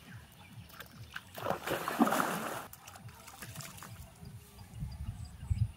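A person getting into a muddy pond: a loud splash of water about a second and a half in, lasting about a second, followed by softer water sloshing and low thuds near the end.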